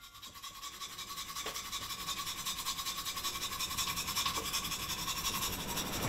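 A fast, even rasping pulse that fades in from near silence and grows steadily louder, with a faint steady high tone underneath: the opening sound of a film trailer.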